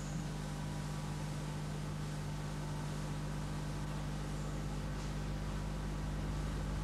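Steady low hum with an even hiss underneath and no other sound: the background noise of an old analogue video recording.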